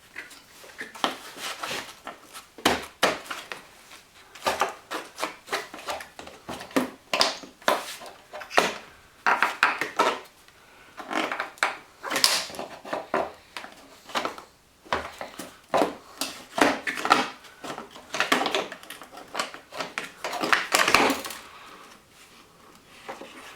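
Hard plastic and metal car parts being handled and worked loose: a run of irregular clicks, knocks and scrapes.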